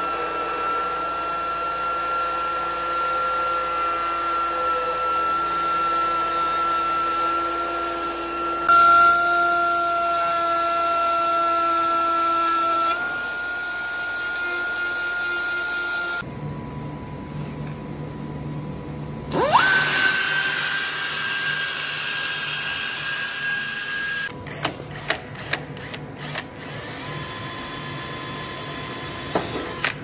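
High-speed power tools grinding and drilling out bonnet-pin slots in a carbon fibre bonnet: a steady high whine that changes pitch across several cut-together stretches, with one spin-up a little past the middle and a run of sharp clicks in the last few seconds.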